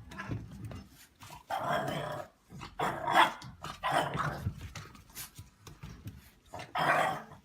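A dog barking and growling in about four short bursts.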